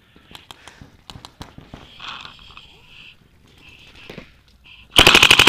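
Scattered faint cracks of paintballs and other markers in the game, then near the end a loud, fast, evenly spaced burst of shots from a Dye DM12 paintball marker, about a dozen in half a second.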